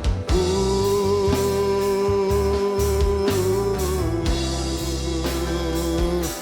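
Gospel band playing an instrumental passage: one long held melody note sustained over a steady bass line and drums.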